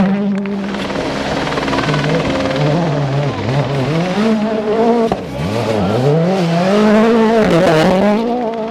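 Rally car engine at full stage pace, its revs climbing and then dropping several times as it changes gear and lifts off.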